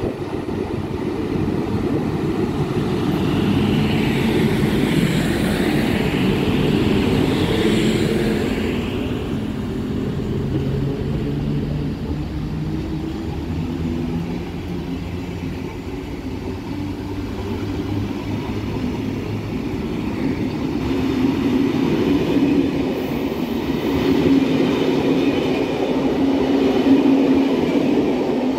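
An NMBS class 27 electric locomotive and its passenger carriages rolling past, the wheels and bogies giving a continuous rumble over the rails. A higher whine swells and fades a few seconds in.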